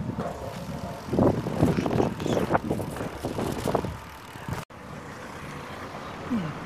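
Road bicycle rolling over a paved promenade, with irregular rattles and knocks from the bike. About two-thirds of the way through, the sound cuts off abruptly to a steadier, quieter background noise.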